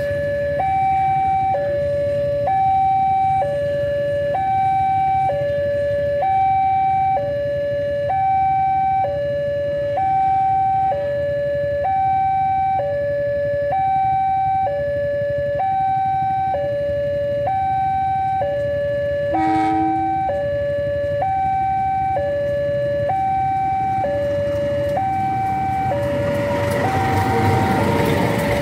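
Level-crossing warning alarm sounding, an electronic two-tone signal alternating high and low about once a second. A brief beep cuts in about two-thirds of the way through. Near the end the noise of an approaching passenger train rises under the alarm.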